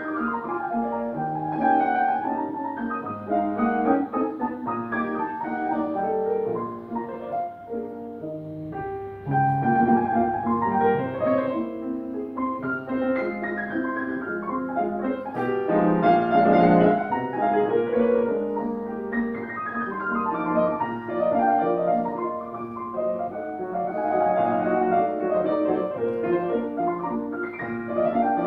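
Steinway grand piano played solo in a classical style: a continuous stream of notes across the keyboard, easing off to a softer passage about a quarter of the way in, then swelling louder again.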